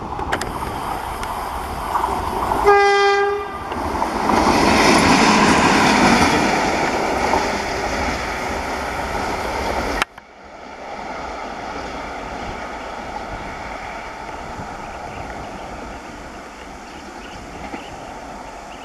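WAG-7 electric locomotive running light: one short horn blast about three seconds in, then loud wheel and rail noise as it passes close. The sound cuts off abruptly about ten seconds in, giving way to a quieter, steady rumble of the locomotive running away.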